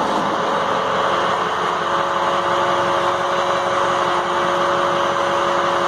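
Air-powered chain hoist running steadily, lifting a heavy tractor housing section: a loud, even hiss with two steady humming tones.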